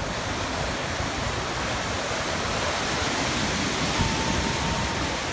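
Steady rushing of whitewater from a breaking wave in an artificial wave pool, with a faint steady tone for about a second near the end.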